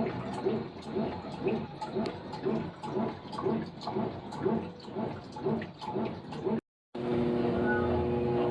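Brastemp top-loading washing machine agitating a load in water, a rhythmic sloshing swish about twice a second. Near the end it changes to a steady hum.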